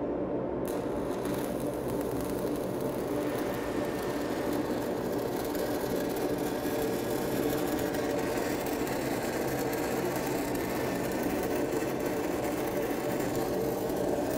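6010 stick-welding arc burning on a pipe root pass, striking up just under a second in and then giving a steady crackle and hiss. Under it runs the steady hum of the engine-driven welding machine.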